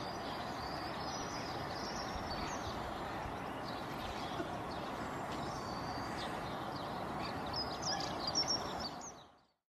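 Steady outdoor background noise with faint, scattered bird chirps, more of them near the end; it cuts off shortly before the end.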